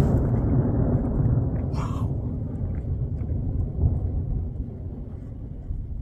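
Low rumble of a firework's bang rolling away and fading, with a brief hiss about two seconds in and a few faint crackles.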